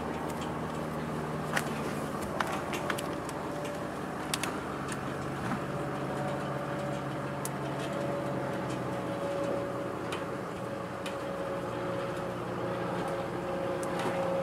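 Steady hum of honeybees around an opened hive, a drone of several wavering tones, with scattered sharp clicks and taps from the wooden frames being handled.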